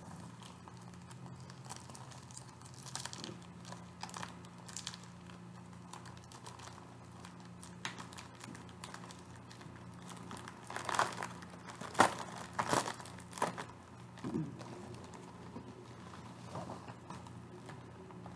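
Plastic packaging crinkling and rustling as a mail-order package is opened and its contents are handled, in irregular bursts, loudest about 11 to 13 seconds in. A faint steady low hum runs underneath.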